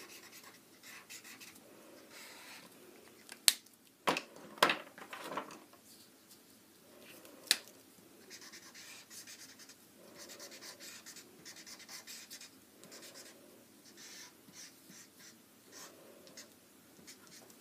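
Felt-tip markers stroking across paper in short, repeated lines, a faint rubbing scratch. A few sharp clicks come about 3.5 to 5 seconds in and again near 7.5 seconds as the colour is switched, with a marker cap pulled off and a marker handled on the table.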